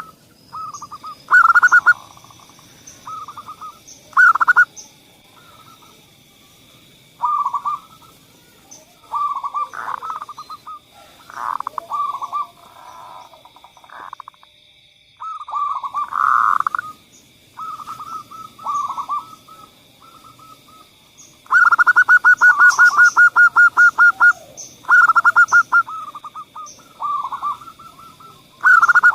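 Zebra dove (perkutut) cooing in short staccato phrases with pauses between them, and a quick run of rapid notes about two-thirds of the way through.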